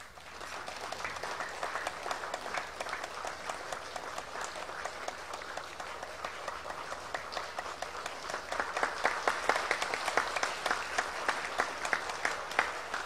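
Audience applauding, many hands clapping together; it starts abruptly and grows louder about two-thirds of the way through.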